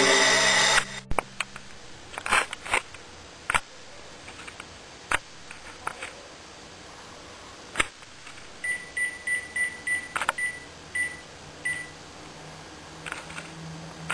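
Music cuts off about a second in, followed by a few scattered clicks and knocks. Later a mobile phone's keypad beeps about nine times, each beep short and at the same pitch, over about three seconds as a number is dialled.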